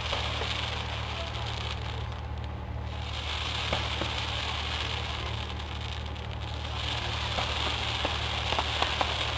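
Fireworks hissing and crackling: a steady hiss that swells and fades, with sharp crackling pops that come thicker toward the end.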